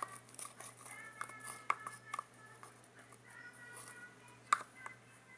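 A wooden stick stirring a thick cornstarch-and-shampoo slime mixture in a plastic container, with irregular clicks and taps as it knocks and scrapes against the container.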